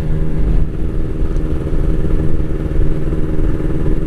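Kawasaki Ninja RR 150's single-cylinder two-stroke engine running at a steady pitch while riding, with wind rumble underneath. It is on its stock exhaust, which the rider finds lacks the typical two-stroke 'nereng-teng' ring.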